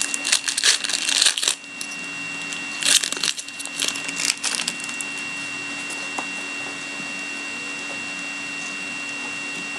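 A hockey card pack's wrapper being torn open and crinkled and the cards handled, in two bursts of crackling over the first half. After that only a steady electrical hum with a constant high whine remains.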